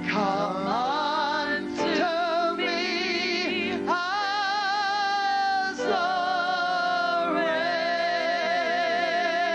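Wordless worship singing: a voice holds long notes with a wavering vibrato and slides up into a new note about every two seconds, over a steady held chord.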